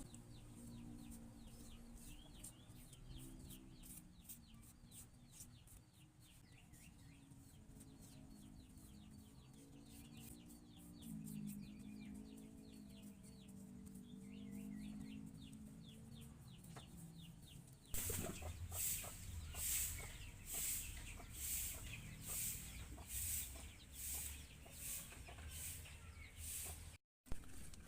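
Faint chickens clucking for about the first two thirds. Then a steady run of rhythmic scraping strokes, a bit more than one a second.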